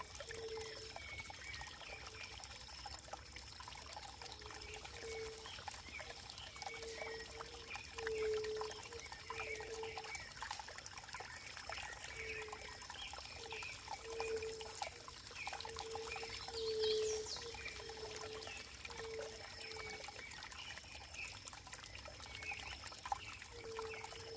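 Running water trickling and pouring, with short gurgling plops at an uneven pace and a patter of small splashes.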